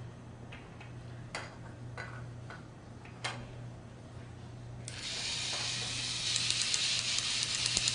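A few light plastic clicks, then about five seconds in a battery-powered toy drill starts running, making a buzzy whir with rapid, even ratcheting clicks as it drives a wheel onto the take-apart toy fire truck.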